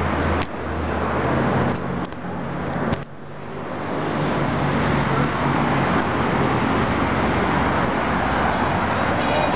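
Large diesel fire engine running steadily, a dense engine and traffic noise, with a few sharp clicks in the first three seconds.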